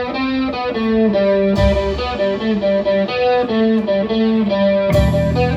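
Live band playing: an electric guitar picks a line of single notes, bass joins about a second and a half in, and the full band crashes in near the end.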